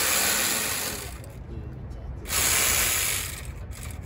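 Cordless power tool running in two bursts, one ending about a second in and another of about a second just past the two-second mark, backing out bolts during engine disassembly.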